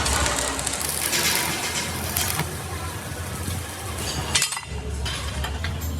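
Metal clinking and clattering over a steady low machine hum, with a few sharp knocks.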